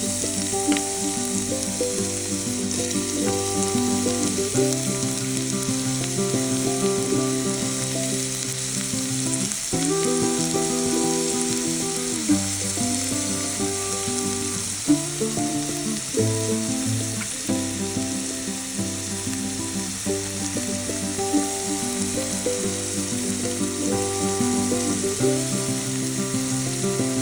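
Onions frying in hot cooking oil in a pan, a steady sizzle, under background music.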